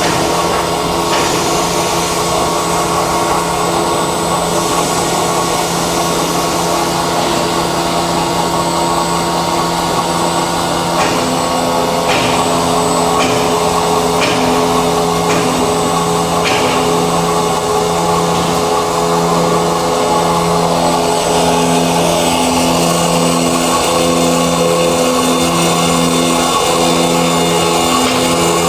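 High-speed carbide circular plate saw running through an automatic cutting cycle on metal plate: a steady machine hum made of several held tones. A few light clicks come around the middle, and in the second half the lowest tone pulses about once a second.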